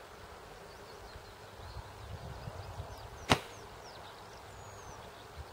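A single sharp shot from a Silverback SRS spring-powered bolt-action airsoft sniper rifle about three seconds in, over the low rumble of wind on the microphone.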